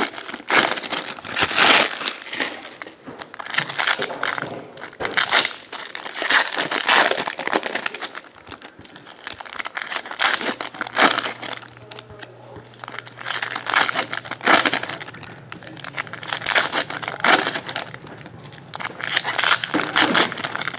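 Trading card pack wrappers crinkling and crumpling in repeated bursts as packs of 2017 Topps Chrome Baseball are opened.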